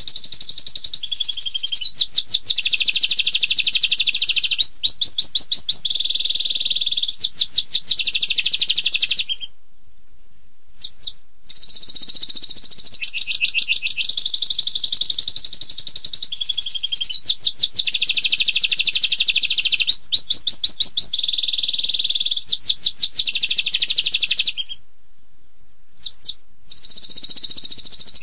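Domestic canary singing long runs of fast, rapid-fire trills, the loud 'tembakan' (shot) song of a constantly singing canary, each run switching pitch with quick sweeping notes. The song breaks off twice, about ten seconds in and again near the end, for about two seconds each, with only a couple of short chirps in the pauses.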